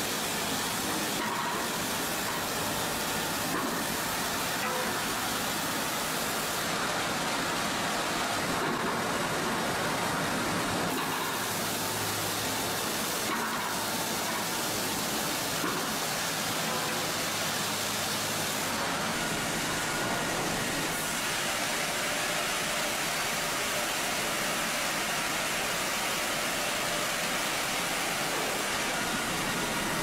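Industrial sawmill saw cutting lengthwise through a log as spiked feed rollers push it past the blade, a steady noisy running sound.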